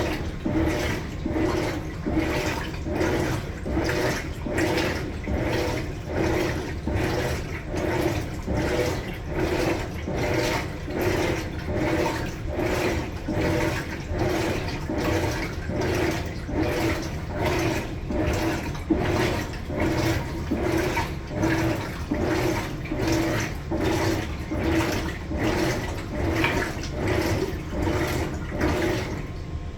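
Maytag Bravos MCT top-load washer agitating a load: water and clothes slosh in even, regular swishes a little faster than once a second over a low motor hum. The swishing stops just before the end.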